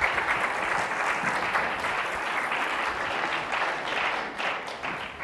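Audience applause: dense, steady clapping from many hands that begins to thin out near the end.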